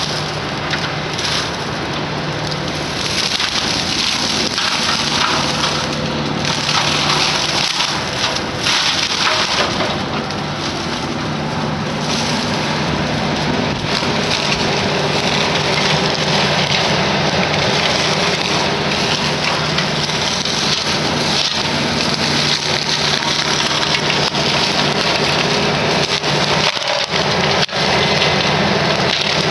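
Excavator-mounted brush mower grinding through trees and shrubs, over the steady running of the excavator's engine.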